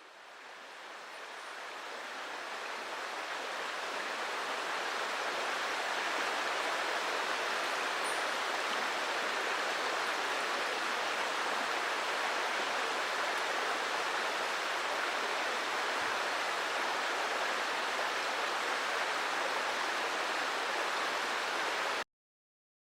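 Mountain stream rushing: a steady, even rush of flowing water that fades in over the first few seconds and cuts off suddenly near the end.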